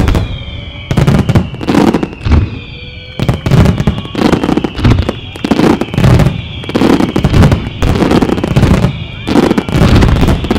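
Fireworks display: a rapid barrage of loud aerial shell bursts, one after another, with high whistles sliding slowly down in pitch underneath.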